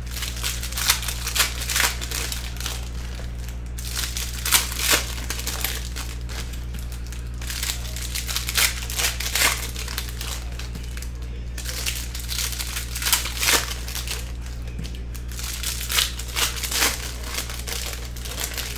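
Glossy trading cards being handled and slid against one another as a stack is sorted by hand, giving irregular clusters of sharp swishing and crinkling.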